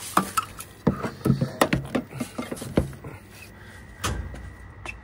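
A quick run of hard plastic clicks and knocks as an EV charging gun is handled and plugged into the car's charging port, with a faint steady high tone coming in about halfway.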